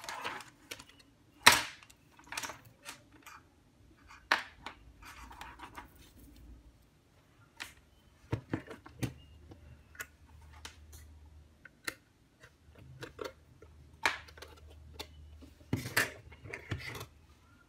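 Scattered clicks, taps and scrapes of a DT9205A digital multimeter and its test leads being handled on a bench, with a sharp click about a second and a half in.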